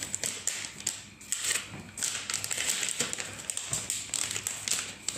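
Irregular small clicks and crinkling of plastic packaging being handled.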